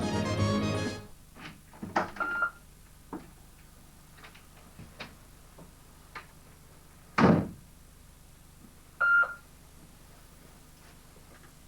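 Background music that stops about a second in, followed by scattered knocks and clicks, one loud thud about seven seconds in, and two short high-pitched squeaks near two and nine seconds.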